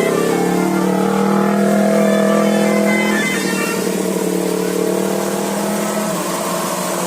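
Bus 'telolet basuri' musical horn, a set of air-horn trumpets playing a slow tune of long held notes sounding together. The notes change to new pitches about every three seconds.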